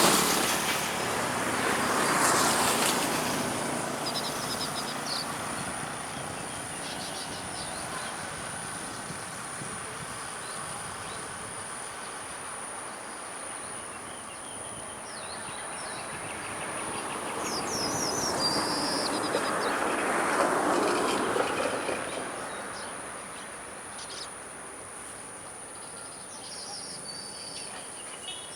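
Small birds chirping in short bursts over a rushing noise that swells near the start and again about two-thirds of the way through, with a steady high-pitched whine throughout.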